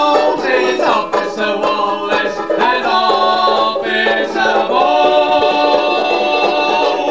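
Opening of a comic song: men's voices singing long held notes in harmony, without words, over a strummed string accompaniment.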